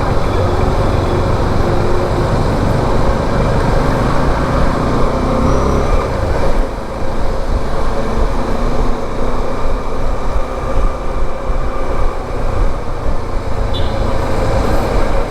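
Motorcycle running on the move, its engine rumble mixed with steady wind rush on the rider's microphone and road traffic noise.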